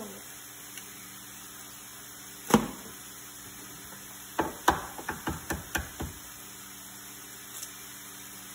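Eggs being knocked against a hard edge to crack their shells: one hard knock about two and a half seconds in, then a quick run of about seven sharp taps over a second and a half.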